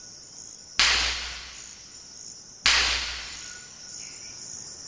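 Rubber tree seed pods bursting open on the branch: two sharp cracks about two seconds apart, each dying away over a second. A steady buzz of insects runs underneath.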